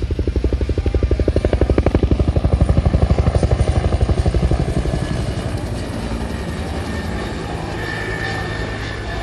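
Two-bladed helicopter flying past: the main rotor's blade slap beats rapidly and evenly, about ten times a second, loudest in the first half. It then fades into a steadier, fainter drone as the helicopter moves away.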